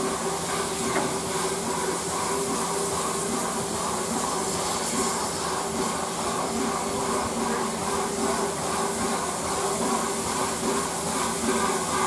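Steam locomotive 60163 Tornado with a steady, continuous hiss of steam.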